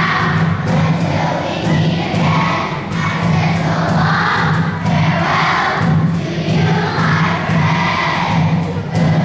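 A group of voices singing together to music, with a steady rhythmic beat.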